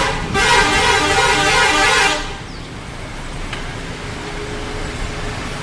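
A Zentrum bus's 'telolet' multi-tone horn blaring a chord of several tones, broken by a brief dip, and cutting off about two seconds in; after that only a lower, steady background noise remains.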